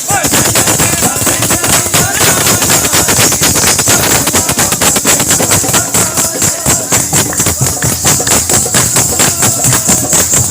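Music with fast, dense jingling percussion and drumming, many strikes a second.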